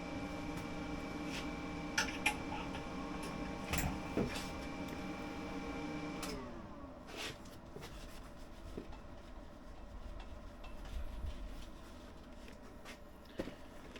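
An electric tool's motor runs at a steady pitch, with a few sharp clicks and knocks, then is switched off about six seconds in and spins down with falling pitch. Scattered quieter knocks follow.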